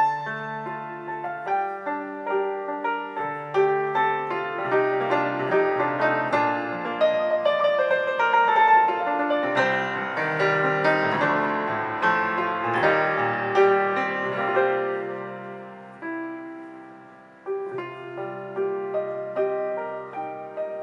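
Solo piano playing a slow instrumental passage, a melody over repeated low chords, reproduced through a Dayton Audio B652 Air bookshelf speaker with its AMT tweeter. It fades down about sixteen seconds in and picks up again a second or so later.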